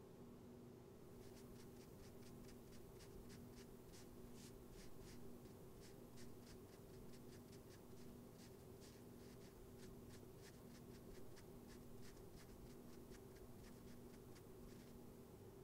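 Faint, quick scratching strokes of a cotton swab rubbing over a painted canvas during cleaning of a portrait, irregular and several a second, starting about a second in and stopping shortly before the end. Under them runs a low steady hum of room tone.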